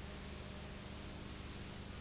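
Steady hiss with a low, constant hum underneath: the noise floor of an old videotape transfer, with no other sound.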